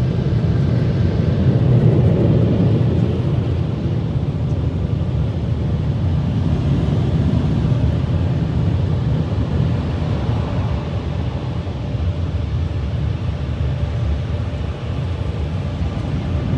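Steady low rumble inside a car's cabin as the car pulls out of an automatic car wash.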